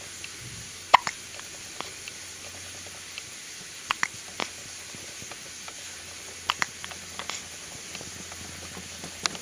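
A two-week-old baby hiccupping: a series of short, sharp hiccups a few seconds apart, the loudest about a second in.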